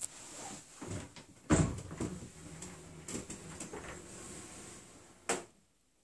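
Wooden knocks and clunks, as from a cabin door or cupboard being handled in a small room. There is a heavy thump about a second and a half in, a few lighter knocks, and a sharp click a little after five seconds.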